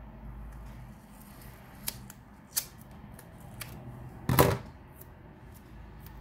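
Scissors snipping 3D foam tape into small pads: a few short sharp snips and clicks, then one louder, longer scraping cut about four seconds in.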